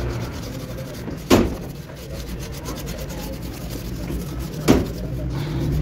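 Scouring pad scrubbing rust-removal paste over a motorcycle's rusty front fork: a steady rubbing scrape, broken by two sharp knocks, one about a second and a half in and another near the end.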